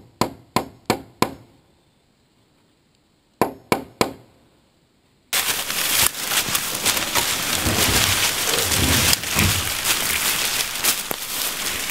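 Hammer driving a nail into the end of a wooden roof truss: a quick run of about five ringing blows, a pause, then three or four more. About five seconds in, the sound cuts abruptly to a loud, steady rushing noise.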